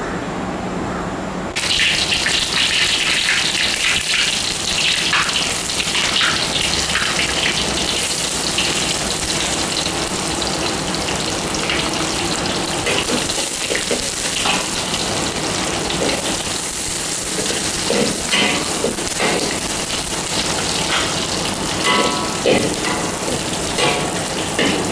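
Hot oil in a steel wok starts sizzling suddenly about two seconds in as sliced aromatics go in, and keeps up a steady hiss. Toward the end a metal spatula scrapes and knocks against the wok as they are stirred.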